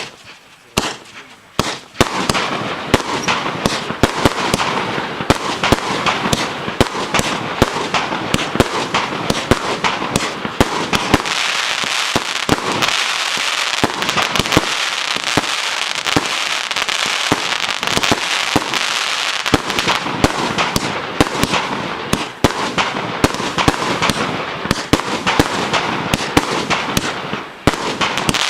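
A 100-shot, 1.2-inch (30 mm) consumer fireworks cake firing. A few single shots come first, then from about two seconds in a rapid, unbroken barrage of launches and bursts.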